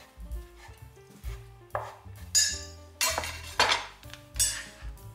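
Kitchen knife chopping diced tomatoes on a wooden cutting board: a handful of sharp knocks, louder from about two seconds in. Near the end a plastic scraper scoops the pieces across the board. Background music plays underneath.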